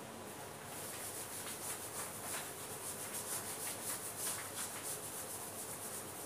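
Marker writing being wiped off a wall-mounted whiteboard sheet: quick back-and-forth rubbing strokes, starting about a second in.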